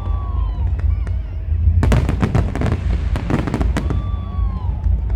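New Year fireworks display: rapid crackling bangs and pops, thickest about two seconds in, with whistling shells whose pitch bends as they fly, over a steady low rumble.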